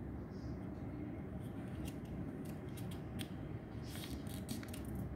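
A small square of origami paper being folded in half and creased by hand against a table: a scatter of short, crisp paper rustles and rubs that is busiest about four seconds in.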